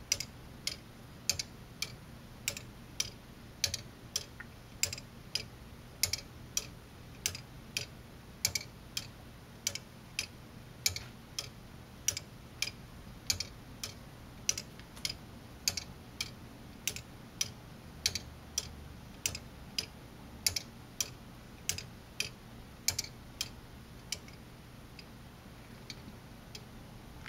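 Lego anchor escapement ticking: the plastic entry and exit pallets on the swinging balance-arm pendulum catch and release the teeth of the escape wheel. The ticks are sharp and evenly spaced, a little under two a second, and grow faint near the end.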